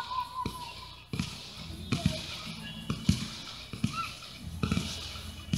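Aerial firework shells launching and bursting at a distance, heard as a series of dull thumps about one a second.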